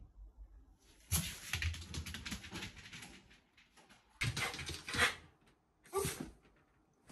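Shiba Inu on a wooden floor: a quick run of taps and scuffles, then two louder noisy bursts, and a short rising whine about six seconds in.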